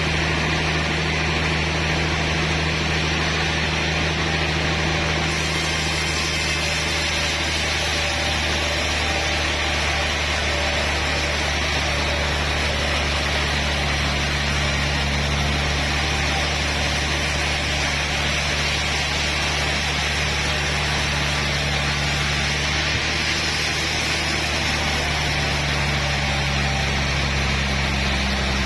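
Sawmill machinery running steadily: a constant low machine drone under an even hiss, without a break.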